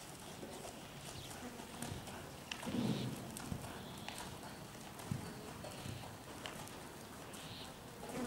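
A horse loping in an arena of sand footing, its hoofbeats coming as uneven dull thuds with small clicks between.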